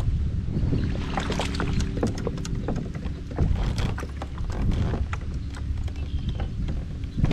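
Scattered clicks and knocks of fishing tackle as a hooked bass is reeled in and lifted toward a kayak, over a steady low rumble of wind on the microphone.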